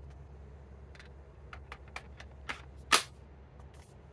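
An 18-volt battery pack sliding onto a RIDGID cordless tire inflator: several light plastic clicks and rattles, then one sharp loud click about three seconds in as the battery latches into place.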